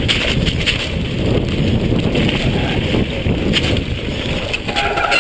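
Mountain bike descending a wet gravel trail at speed: tyres rumbling over stones and the bike rattling, with wind buffeting the camera's microphone.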